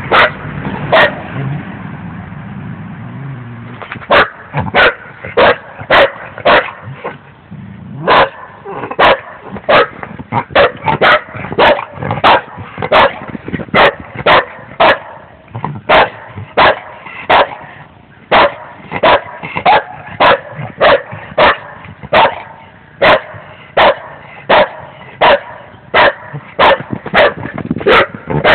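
A dog barking over and over, short barks about one and a half a second, after a single bark and a pause of about three seconds at the start.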